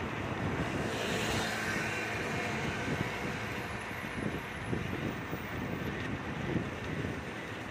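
Wind rumbling on the microphone of a moving bicycle, over steady road noise, with a brief swell of hiss about a second in.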